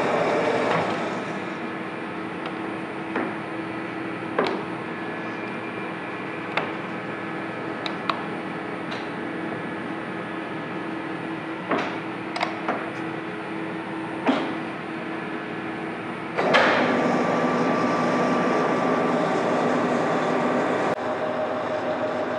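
Monarch engine lathe headstock being shifted through its gears: the running sound drops away about a second in, leaving a steady motor hum, while the speed-change levers clunk into place about a dozen times. About 16 seconds in the spindle drive runs up again and keeps running, the shifter with its new bronze shift shoes now working.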